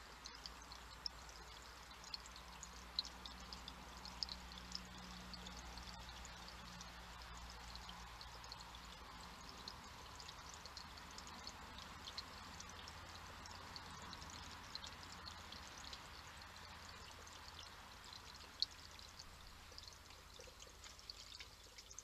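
Faint, steady trickle of water from a small rock-cascade fountain running into a stone basin, with fine splashing drips. A few sharp clicks stand out, the loudest about three seconds in and again near the end.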